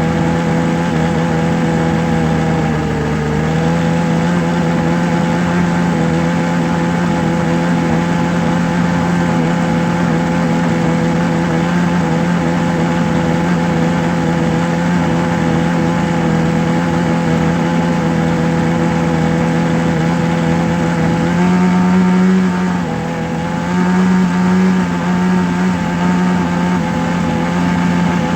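A steady motor drone with a strong low hum. Its pitch shifts slightly about three seconds in and wavers briefly a little past the middle.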